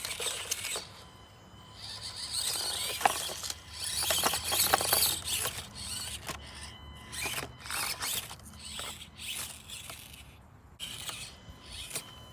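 Axial SCX24 Deadbolt micro crawler's small brushed motor and gears whirring in short stop-start bursts as it crawls over obstacles. Sharp clicks and knocks come from the tires and chassis.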